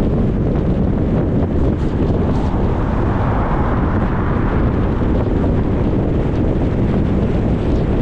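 Steady road noise from a car driving: a rumble of tyres and wind that swells a little a few seconds in, then settles.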